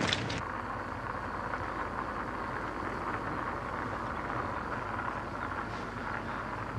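Steady, even background noise with no distinct events, muffled and without much high end: the ambient room tone of an old film soundtrack.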